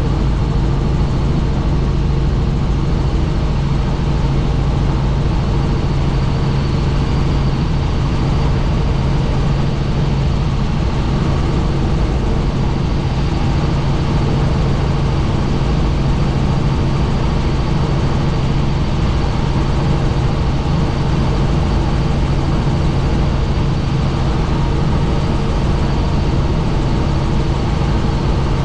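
Helicopter in flight: a loud, steady drone of engine and rotors with a constant low hum, unchanging throughout.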